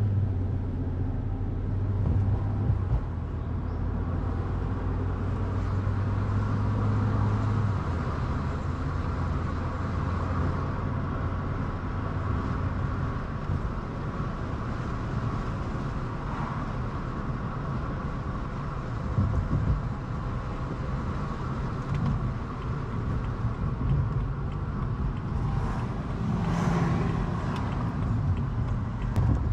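Car driving along a street, heard from inside: a steady low engine hum over tyre and road noise, with a louder rush near the end.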